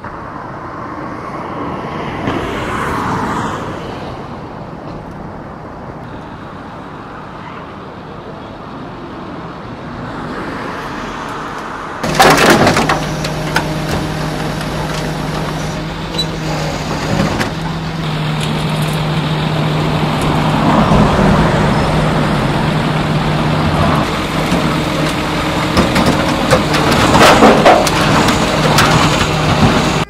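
Motorway traffic passing, with vehicles swelling by in the first twelve seconds; about twelve seconds in a vehicle engine starts up close by and runs steadily with a low hum, with louder swells as traffic goes past.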